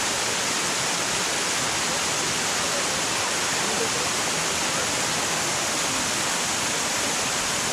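Large waterfall rushing: a steady, even roar of falling water.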